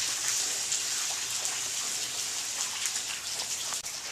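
Steady rain falling: an even hiss with faint scattered ticks of drops.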